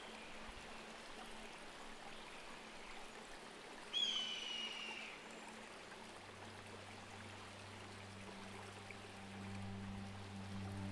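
Faint steady rushing of a stream. About four seconds in, one high, drawn-out call cuts across it for about a second. From about six seconds, low sustained music notes come in underneath.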